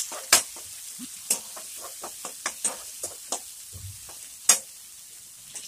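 Chopped onion, garlic and green chillies sizzling in oil in an aluminium kadai, stirred with a metal spatula that scrapes and knocks against the pan several times, the loudest knock about four and a half seconds in.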